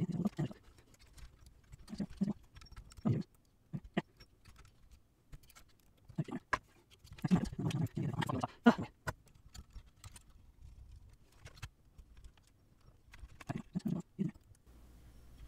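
Screwdriver work inside a cassette deck's metal chassis, sped up: scattered sharp clicks and short clattering bursts of tool and screw against metal, the busiest stretch a little past the middle.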